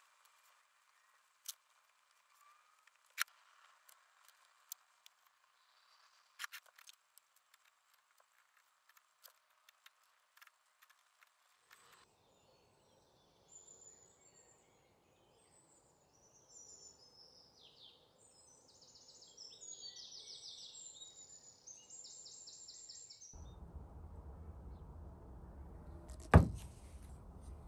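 A scattering of sharp clicks and taps, then birds chirping and trilling outdoors over faint background noise, then a steady low room noise with a single loud knock near the end.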